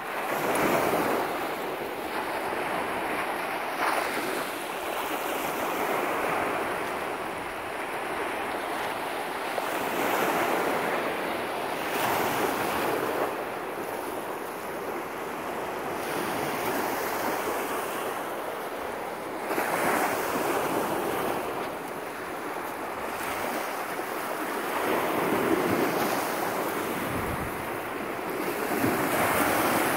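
Small lake waves breaking and washing up a sandy shore, with wind buffeting the microphone; the sound swells and eases every few seconds.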